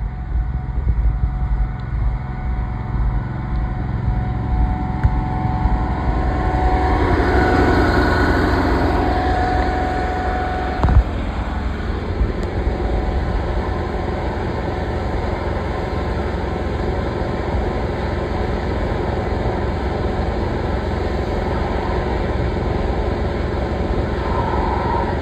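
Engine of a high-pressure drain jetting unit running steadily, with water jetting from the hose in a blocked culvert. The rushing grows louder about six to ten seconds in, and there is a single knock about eleven seconds in.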